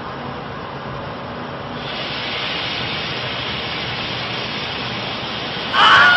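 Steady hiss of background noise that gets louder about two seconds in. Right at the end a loud scream with a falling pitch cuts in: the Wilhelm scream sound effect.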